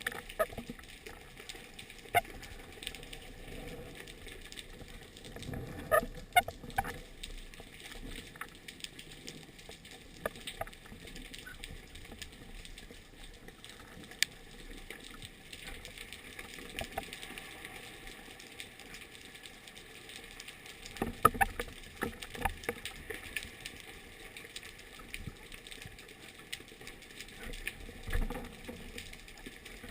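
Underwater ambience picked up through a camera's waterproof housing: a steady faint hiss with scattered clicks and knocks, loudest in clusters about six seconds in and about twenty-one seconds in.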